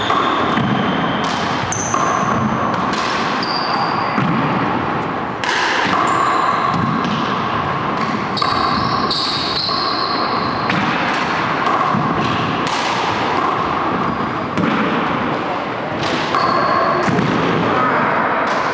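Racquetball rally: the hollow ball cracks against racquets, walls and the hardwood floor at irregular intervals, many times over, with short high sneaker squeaks on the wooden floor between the hits.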